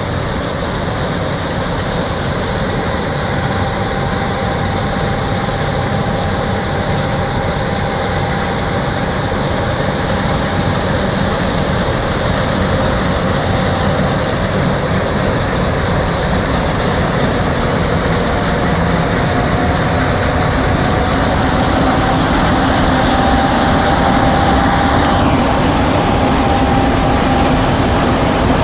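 D80 combine harvester running while harvesting soybeans: a steady, dense machine noise with a faint high whine, slowly growing louder.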